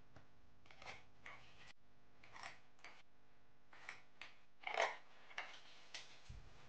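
Scissors cutting a sheet of white paper in a run of short, faint snips, with the paper rustling as it is handled; the loudest comes just before five seconds in.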